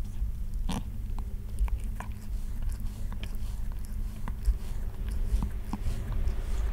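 Calico cat grooming her leg, her tongue making irregular small wet licking clicks, one or two a second, with a stronger one under a second in, over a low steady hum.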